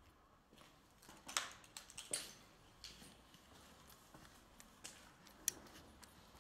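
Irregular footsteps on a debris-strewn concrete floor and stairs, scuffing and clicking, with a sharp click about five seconds in.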